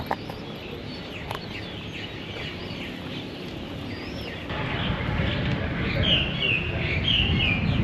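Birds chirping and calling outdoors with short repeated chirps, busier near the end, over a low rumbling noise that swells about halfway through.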